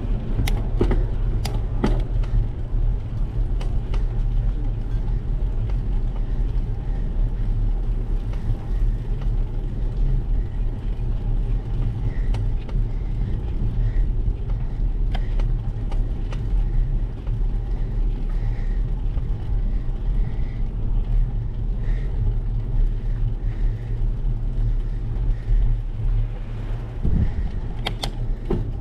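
Steady low rumble of wind buffeting and tyre noise picked up by a bicycle-mounted GoPro while riding on asphalt, with a few sharp clicks, mostly in the first two seconds and near the end.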